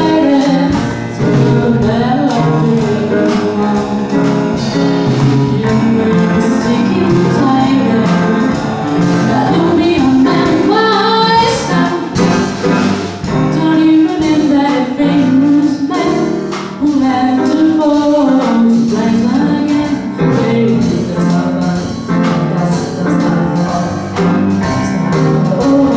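Live jazz band playing: a female vocalist singing over a Kawai grand piano, a melodica and a drum kit.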